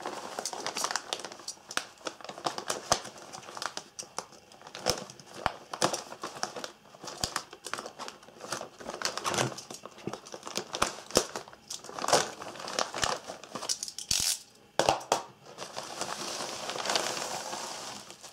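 Plastic courier mailer crinkling and crackling as it is handled and slit open with a utility knife, with many short sharp crackles. Near the end a longer, steadier rustle as the bubble-wrapped package is pulled out.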